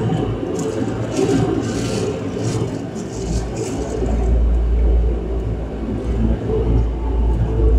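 ATR 72 turboprop engine and propeller running while the aircraft taxis, heard from inside the cabin: a steady drone with a whir. A deep rumble comes in about three seconds in.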